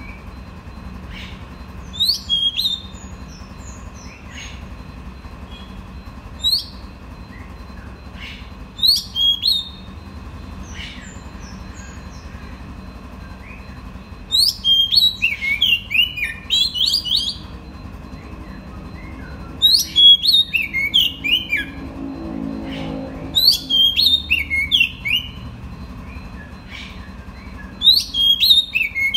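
Male oriental magpie-robin singing short phrases of clear whistled notes that glide up and down, a phrase every few seconds with longer runs about halfway through and later on. This is its song for calling a female.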